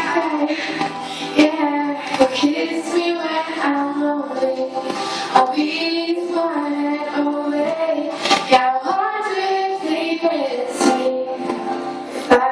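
A girl singing solo into a handheld microphone, with long held notes that bend in pitch.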